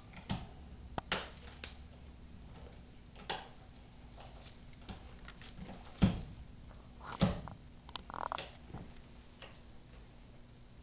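Great Pyrenees gnawing a bone, making irregular sharp clicks and knocks with gaps between them. The loudest knock comes about six seconds in.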